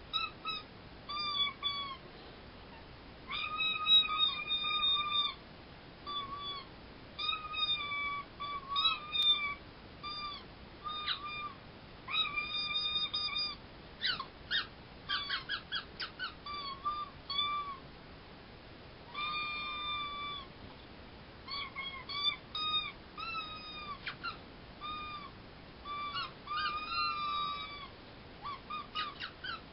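Squeaky talk between two fursuiters: runs of high-pitched squeaks in place of words, passed back and forth in phrases with short pauses between them. Some squeaks are held, some are quick chirps, and some glide up and down in pitch.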